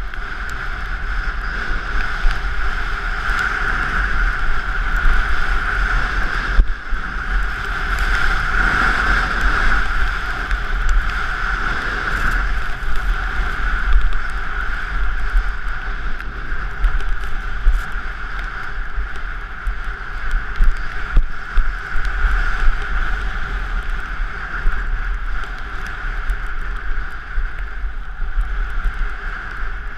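Wind rushing over the microphone of an action camera worn by a skier moving downhill, mixed with the steady hiss of skis running through snow. Low rumbling buffets from the wind that swell and ease.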